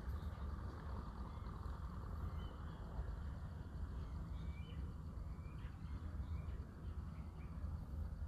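Wind buffeting the microphone as a steady low rumble, with a few faint, short bird chirps near the middle.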